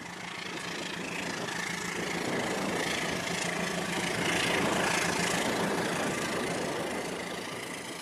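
Remote-control toy train running on its track: a steady motor hum with the rattle of wheels and wagons. It grows louder as the locomotive comes up close, peaking about halfway through, then fades as the wagons roll by.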